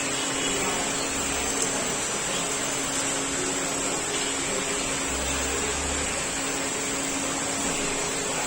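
Steady machine-like hum and hiss, with a constant low tone under it and a faint low rumble that comes and goes.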